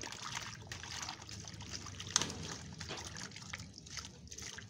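Water trickling and splashing as gayam seeds are rubbed and rinsed by hand in a plastic basket under running water, with small clicks of the seeds knocking together and one sharper click about two seconds in.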